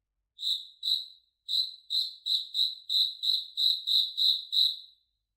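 A cricket chirping, a dozen short high chirps at about three a second, stopping about a second before the end.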